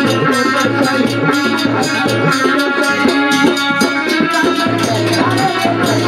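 Live Hindi bhajan music: a fast, steady beat of percussion with a rattling shaker over held instrumental notes. A male voice comes in singing in the latter part.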